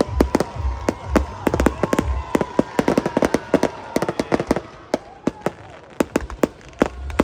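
Fireworks display going off: a dense run of sharp bangs and crackles that thins out about halfway through, then picks up again at the very end.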